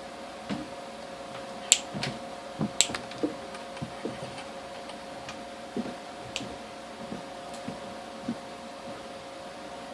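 Irregular light clicks and taps of small objects being handled, loudest about two seconds in and thinning out later, over a steady two-note electrical hum.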